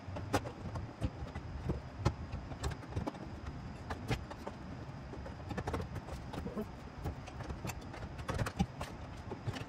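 Scattered light clicks and knocks of hands fitting and handling parts in a car's engine bay, a few sharper clacks standing out over a low steady background hum.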